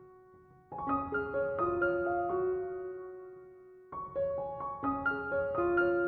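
Background music: a gentle piano melody of single notes that ring and fade, with a new phrase about a second in and another near the four-second mark.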